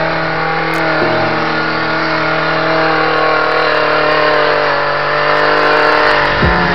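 Background music with sustained chords that change about a second in and again near the end.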